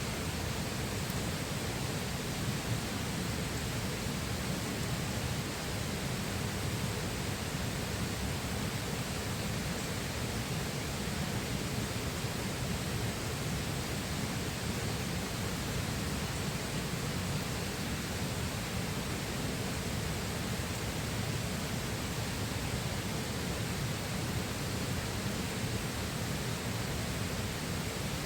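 Flowing river: a steady, even rush of water.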